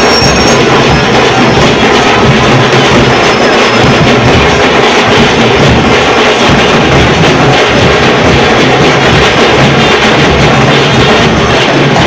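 Loud music with steady rhythmic drumming and percussion.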